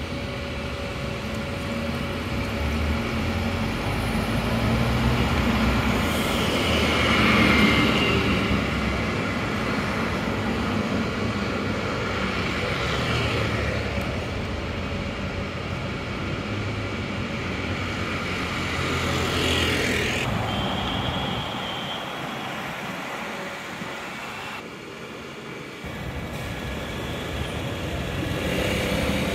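London double-decker buses driving along the street, engine running with tyre and road noise, swelling twice as buses pass close.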